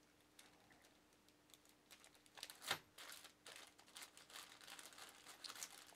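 A small plastic accessory bag from a PC case being handled: faint crinkling with light clicks, starting about a second and a half in and loudest about halfway through.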